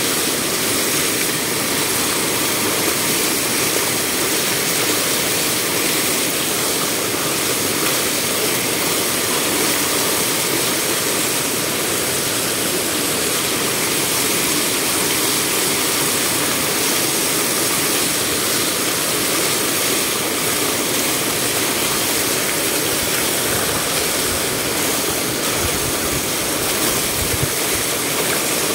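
Shallow water rushing steadily over a stone water gate, with a few low bumps near the end as a hand works in the flow.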